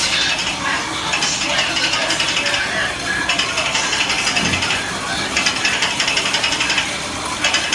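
Rapid mechanical ratcheting clicks, coming in stretches of about a second with short gaps between them.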